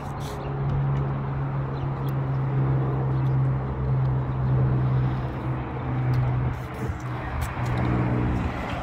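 Large diesel engine running steadily with a deep, even hum that grows louder about half a second in and eases near the end, over general city noise.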